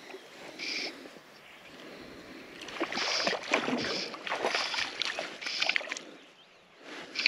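A hooked rainbow trout splashing and thrashing at the surface while fly line is stripped in by hand, a run of short swishes about every two thirds of a second that starts a few seconds in.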